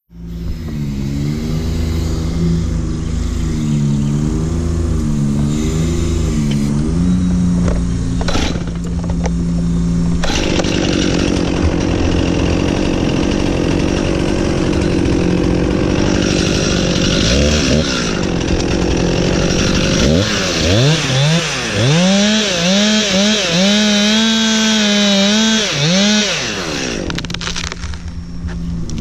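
A two-stroke chainsaw running, its pitch wavering unevenly at first. From about ten seconds in it runs steadily with a rough hiss. Near the end it is revved up and down several times.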